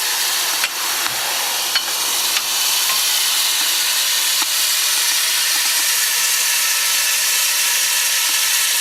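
Welsh Highland Railway steam locomotive standing and hissing steam steadily, with a few sharp clicks in the first couple of seconds.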